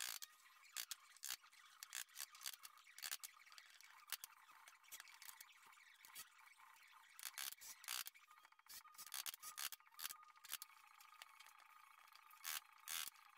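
Bench chisel pared by hand into wood while cutting a bowtie key mortise: irregular short cracks and scrapes as the blade cuts and chips break away.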